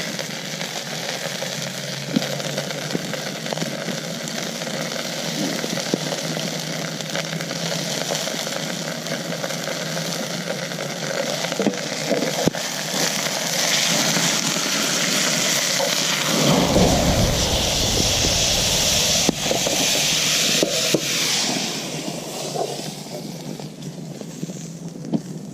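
Food frying in oil in a pan over an open fire: a steady sizzle with scattered crackling pops, growing louder in the middle. A low rumble joins about two-thirds of the way in and fades before the end.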